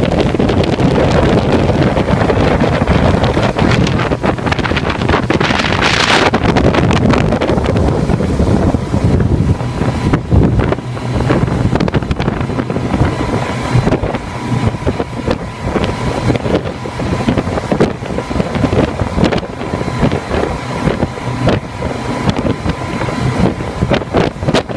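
Three Mercury Verado 300 outboards running at speed with the boat on plane, a steady whine under heavy wind noise on the microphone. There is a brief loud rush of noise about six seconds in.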